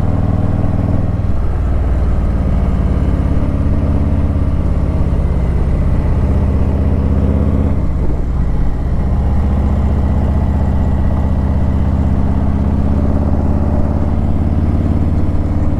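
Harley-Davidson Ultra Limited's V-twin engine running steadily on the move, heard from the rider's seat. Its note drops about a second in and dips briefly again around halfway before settling.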